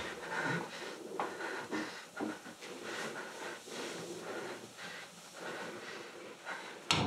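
A man's heavy, uneven breathing, with a sudden loud bang near the end.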